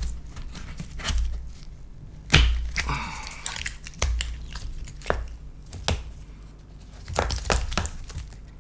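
Battery cells being pried loose from their adhesive inside a MacBook Pro's case: irregular sharp clicks and cracks with dull knocks, the loudest about two and a half seconds in.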